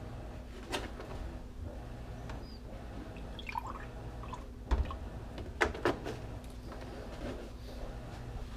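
Milk poured from a plastic jug into a glass measuring cup of water, with a few sharp knocks as the containers are handled on the counter.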